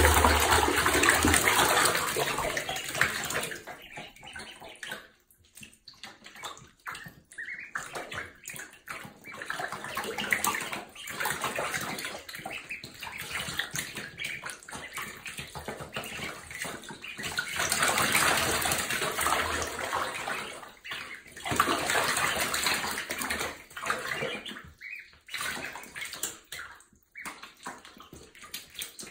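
Ducklings splashing and paddling in shallow bathtub water, in irregular spells of sloshing that are loudest in the first few seconds.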